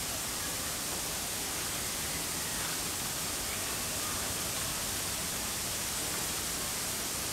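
Steady, even hiss of background noise with no distinct events, and a few faint, indistinct higher sounds now and then.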